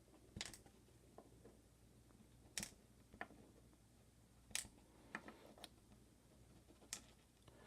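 Scattered small, sharp clicks, about seven at uneven spacing, of the lock parts of a disassembled Kwikset deadbolt cylinder being handled during gutting.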